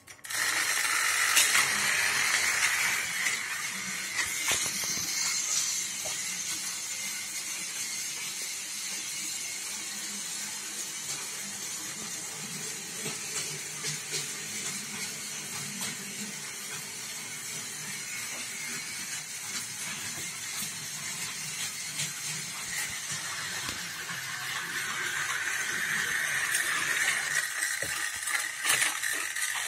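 Battery-powered Plarail toy train running on plastic track: a steady motor whir with a rattle of wheels, starting and stopping suddenly. It is loudest in the first few seconds and again near the end, quieter in between.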